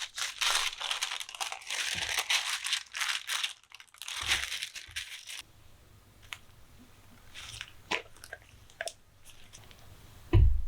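Kitchen handling noise: dense crinkling and crackling for about five seconds, then a few light taps and a soft thump near the end.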